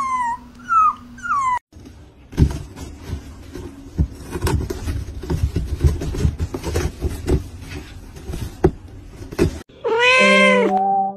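High falling whimpering squeaks, about two a second, stop after a second and a half. Then comes several seconds of scratching and scraping with sharp clicks as a tabby cat claws at the side of a cardboard box. Near the end, loud drawn-out pitched cries begin.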